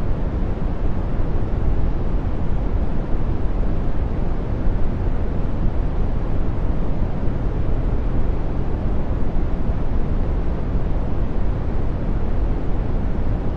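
Brown noise: a steady, deep rush of random noise, strongest in the bass and thinning out toward the top, unchanging throughout.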